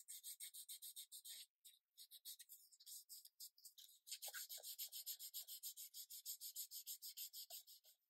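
Sandpaper rubbed back and forth along the edge of a thin plywood strip, rounding the edge over. It makes quick, faint rasping strokes, about six a second, with brief pauses about a second and a half in and again around four seconds.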